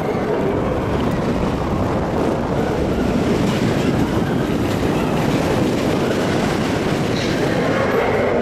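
Steel roller coaster train running along its track, heard from on board: a steady rumble of wheels on the rails with rushing air noise.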